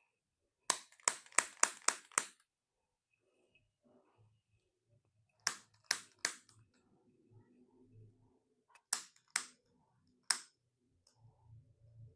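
Sharp cracking clicks during a chiropractic tailbone treatment, in three bursts: six quick cracks, then three, then three more spaced further apart.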